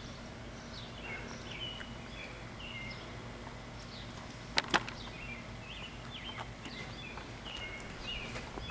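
Small birds chirping over and over in short hooked calls, against a faint steady hum. Two sharp clicks, the loudest sounds, come close together about halfway through.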